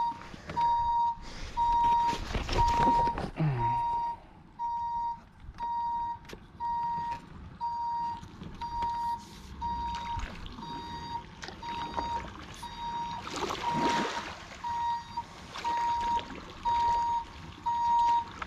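A fish-stocking truck's reversing beeper sounding steady single beeps about once a second as the truck backs down the boat ramp. Two louder rushes of noise come about two seconds in and again near fourteen seconds.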